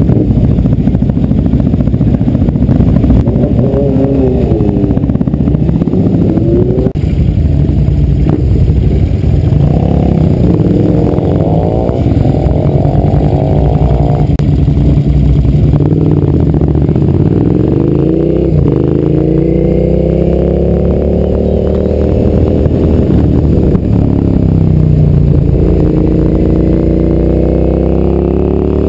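Suzuki SV's V-twin motorcycle engine heard on board, pulling out and accelerating through the gears on warm-up laps. The engine note climbs with each gear and drops back at every change, several times over.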